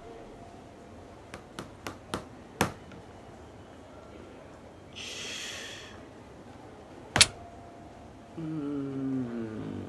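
A few light taps, a short hiss, then one sharp, loud strike on a ticket-terminal key about seven seconds in, the key slapped down hard like a shogi piece. A low drawn-out vocal hum follows, falling in pitch.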